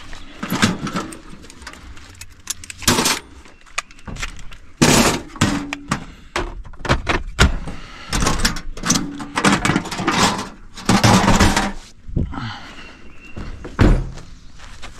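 Irregular knocks, thuds and clatter, coming in uneven clusters.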